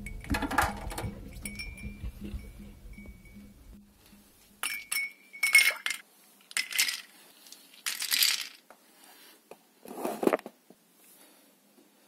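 Background music fading out, then ice cubes dropped one at a time into a glass tumbler of drink, about five separate clinks with a short ring, the last one duller.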